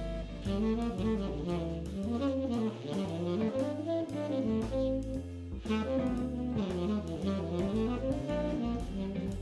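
Background jazz music: a saxophone playing the melody over a drum kit beat.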